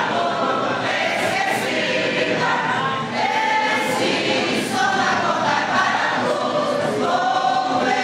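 Mixed church choir of men's and women's voices singing a gospel hymn together in held, sustained chords.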